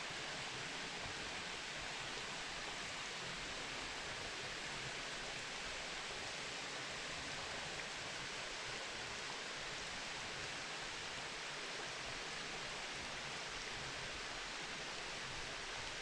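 Shallow stream water running over flat rock ledges: a steady, faint rush.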